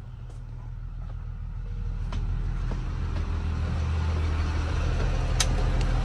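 Diesel engine of a 2006 Blue Bird Vision school bus idling, heard from inside the bus as a steady low hum that grows steadily louder. A sharp click sounds once near the end.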